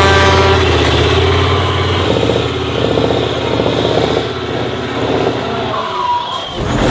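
Heavy off-road trial trucks' diesel engines running hard under load, the sound shifting abruptly a couple of times.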